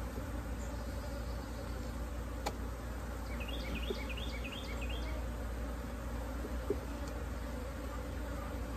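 Honeybee colony buzzing steadily around an opened brood box, the hum of agitated, defensive bees. A single sharp click sounds about two and a half seconds in, followed by a quick run of short high chirps.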